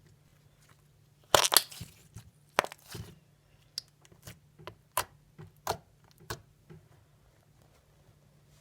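Fluffy slime being squeezed and poked, its trapped air popping. There is a burst of loud crackles about a second in, then a string of separate sharp pops that stops well before the end.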